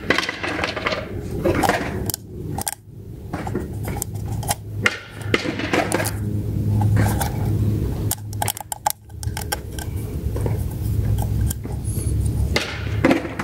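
Plastic oil filter housing cap and cartridge element handled and turned in the hands, giving scattered light plastic clicks and rattles over a low steady hum.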